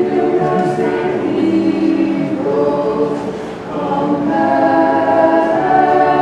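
Orthodox church choir singing unaccompanied in held, sustained chords, with a brief break between phrases about three and a half seconds in.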